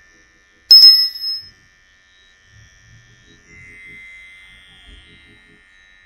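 A single bright bell ding, a sharp strike about a second in that rings out for about half a second, from a subscribe-notification sound effect. Under it, the faint steady high whine of a cordless hair trimmer running.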